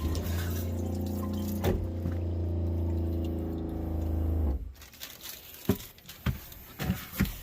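A toilet being flushed in the RV: water running into the bowl over a steady low motor hum, which cuts off abruptly after about four and a half seconds, followed by a few light clicks.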